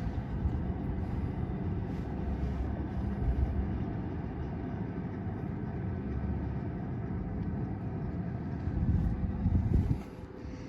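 Gas furnace exhaust vent pipe blowing flue gas out under the inducer motor's draft: a steady low rush with a faint hum. It drops off suddenly near the end.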